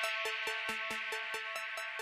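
Electronic music with a fast, steady beat over held notes, slowly fading out.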